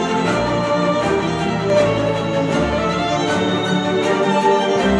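Orchestral string music playing through Polk Audio bookshelf speakers driven by a Yamaha R-S202 receiver; partway through, the playback switches from the Polk XT20 pair to the ES20 pair.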